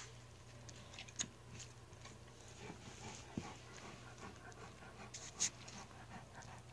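Faint breathing and small vocal noises from 11-day-old English Mastiff puppies crawling on a blanket. Soft rustling and a few sharp clicks run through it, the sharpest about five seconds in.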